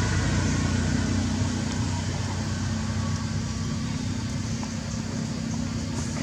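Steady low motor hum that eases slightly in level, over a background hiss.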